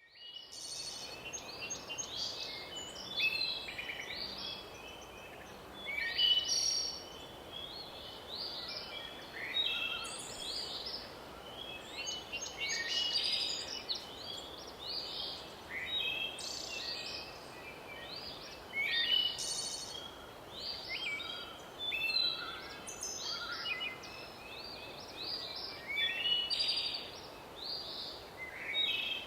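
Birdsong: many short, quick chirping phrases, repeating every second or two, over a steady faint hiss.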